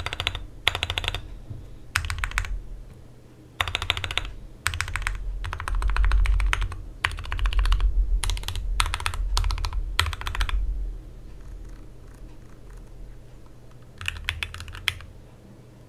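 Typing on a GMMK Pro mechanical keyboard with lubed Gateron Milky Yellow linear switches, an aluminium plate and a tape mod. Runs of rapid keystrokes are separated by short pauses, with a longer pause of a few seconds before one last short run near the end.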